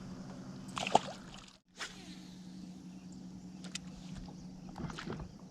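Steady low hum of a boat motor running. A sharp click comes about a second in, and the sound drops out briefly just after.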